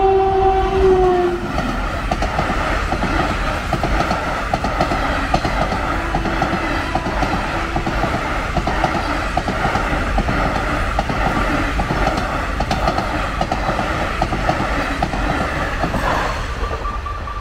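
An Indian Railways electric locomotive's horn sounds a steady note that cuts off about a second in. Then a passenger train passes close by: a steady rattle and clickety-clack of coach wheels over the rail joints, which eases near the end.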